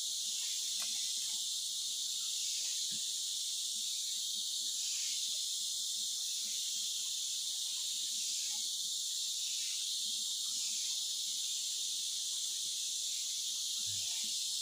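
Steady, high-pitched chorus of rainforest insects, unbroken and even in level.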